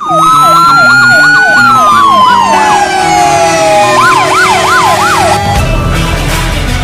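Fire engine's electronic siren sounding in a fast yelp, sweeping up and down about three times a second, with a slower gliding tone alongside. Near the end, rock music with a steady beat takes over.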